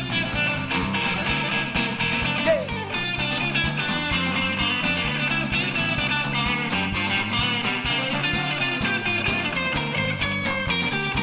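Instrumental break of a rockabilly-country song: electric guitar solo over strummed acoustic guitar and walking bass, with a steady driving beat.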